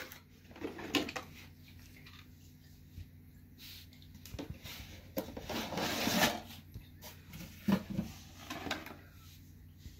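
Cardboard packaging being handled: scattered knocks and clicks, with a longer rustle of cardboard about five to six seconds in.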